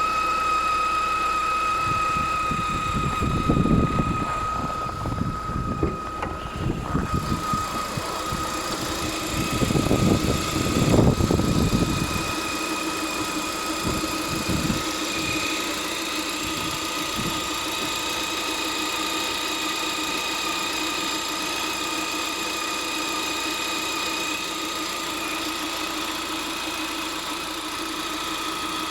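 Lada Vesta 1.8-litre engine idling with a steady high-pitched whistle, which the owner locates on the alternator side. Irregular low rumbles come and go during the first twelve seconds.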